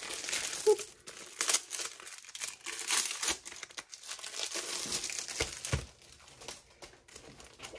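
Packaging crinkling and rustling as it is unwrapped by hand. The crackling is busiest for about six seconds, then grows fainter.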